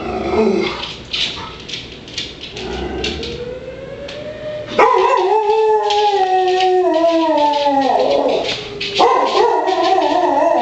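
A dog howls at a severe-weather warning siren: a few short barks, then a loud, long howl that starts abruptly and slowly falls in pitch, and a second wavering howl near the end. The siren's faint rising wail is heard a few seconds in, before the first howl.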